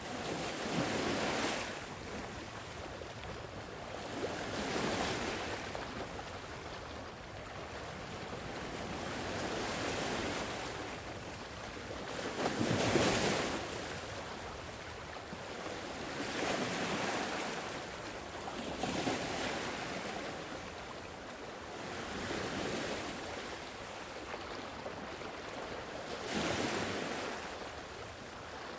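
Sea waves washing onto a shore: a steady series of surges a few seconds apart, with the biggest wave breaking about halfway through.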